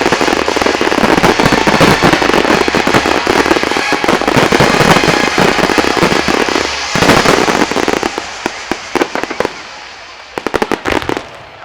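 A display fireworks barrage: dense, overlapping shell bursts and crackling that thin out after about seven seconds into scattered separate bangs, with a last quick cluster of reports near the end.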